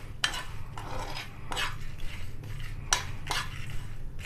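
Steel spoon stirring and scraping whole spices (cumin, fennel, coriander seeds and dried red chillies) as they roast in a nonstick frying pan, in about five separate scraping strokes.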